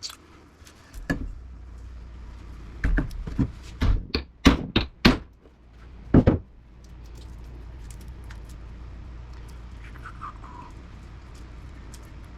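About eight sharp metal knocks and bangs in a few seconds, the loudest near the middle, as a stuck electric motor stator is worked at to free it from its housing.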